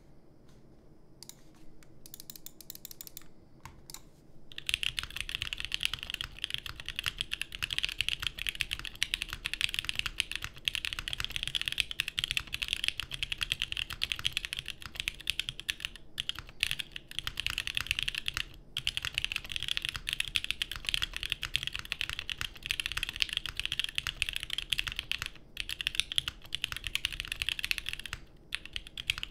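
Typing on a plateless Vertex Arc60 custom mechanical keyboard with lubed SP Star Polaris Grey linear switches and GMK keycaps, a deep-sounding build. A few scattered keystrokes come first, then fast continuous typing from about four and a half seconds in, with a few brief pauses.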